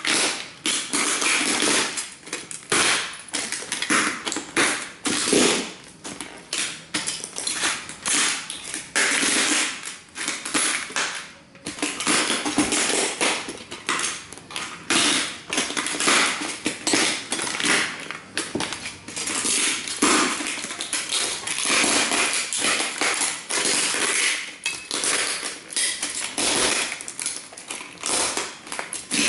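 Cowboy boots stomping and grinding on the broken pieces of model train buildings: a steady run of quick crunches and cracks, pausing briefly a couple of times.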